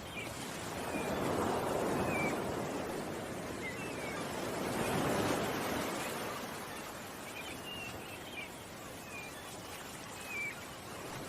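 Ocean waves washing ashore, swelling twice, with small birds chirping now and then.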